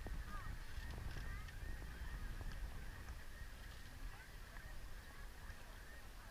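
Low wind rumble and water swishing past a small sailing catamaran's hull as it moves, with faint high wavering squeaks throughout.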